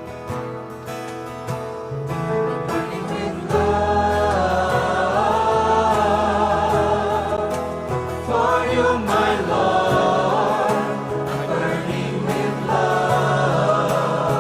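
Christian worship song sung by a choir or group of voices over instrumental backing, with guitar, filling out with bass about a few seconds in.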